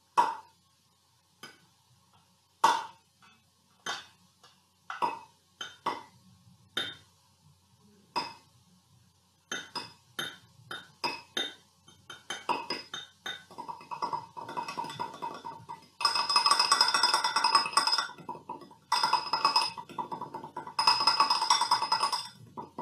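Fingertips tapping the bottoms of two stainless-steel saucepans, each tap a ringing metallic ping. Single taps a second or more apart speed up steadily until, about two-thirds in, they merge into rapid continuous drumming in three long bursts, meant as raindrops starting slowly and then falling really fast.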